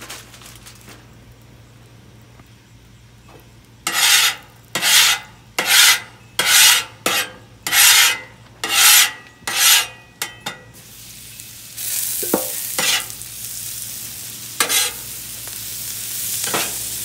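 Metal spatula scraping across the steel top of a Blackstone griddle in about eight quick strokes. About twelve seconds in a steady sizzle starts as sliced peppers and onions fry on the hot griddle, with a few strokes of the spatula as it turns them.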